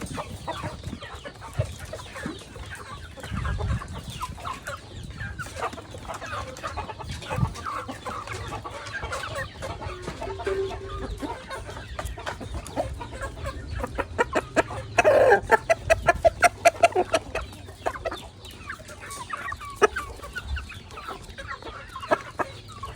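Chickens clucking, with many sharp ticks throughout and a louder run of rapid calls about fifteen seconds in.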